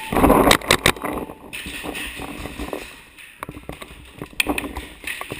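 Paintball marker shots: a quick string of three sharp cracks about half a second in, over a rush of movement noise. Sparse, fainter cracks follow near the end.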